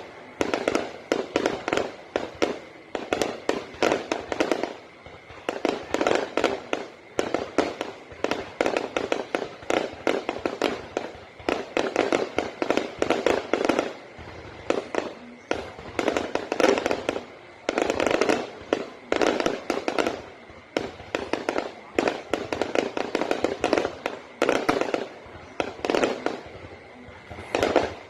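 Fireworks going off: rapid volleys of many sharp cracks and bangs, bunched in clusters a second or two long that follow one after another.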